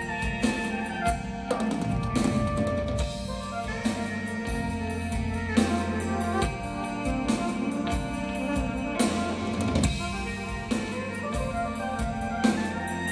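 Progressive-metal band playing live: full drum kit with bass drum, snare and repeated cymbal crashes under held melodic notes.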